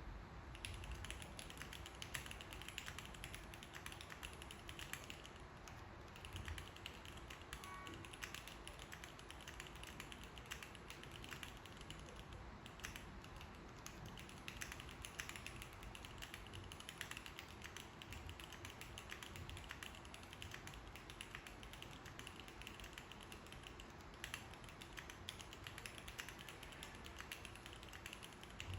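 Typing on a custom CNC-machined mechanical keyboard: a steady, unbroken run of key presses, many clicks a second.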